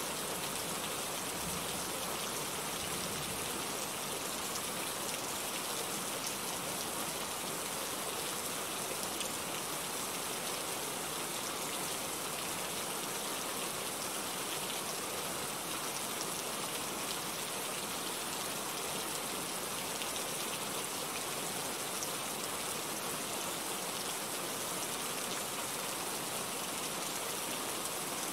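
Steady rain falling, an even hiss with faint ticks of single drops.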